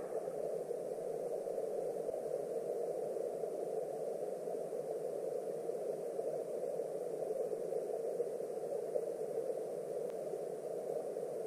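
Steady, muffled rush of flowing stream water heard underwater through a camera's waterproof housing.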